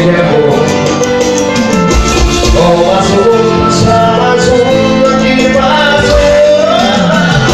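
Loud music with a singer in a Latin American popular style: sustained chords under a voice that slides in pitch.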